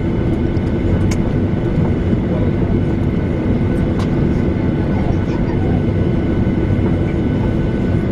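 Steady cabin noise of a Boeing 737 on the ground, its twin CFM56 turbofans idling: an even low rumble with a steady whine, heard from inside the cabin by a window. A couple of faint clicks about a second in and about four seconds in.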